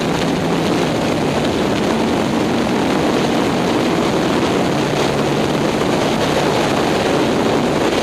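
Sport motorcycle running at speed on a racetrack, its engine note buried under heavy wind rush on the onboard microphone, steady throughout.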